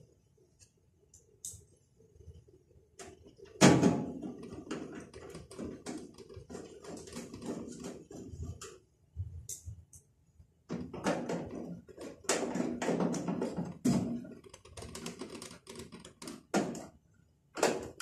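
Hand tools and screws working on a microwave oven's sheet-metal cover as it is fastened back on: irregular metallic clicks, taps and rattling, with a sharp knock about four seconds in.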